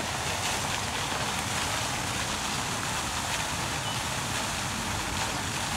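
Steady outdoor rushing ambience, an even hiss over a low, unsteady rumble, with no distinct events.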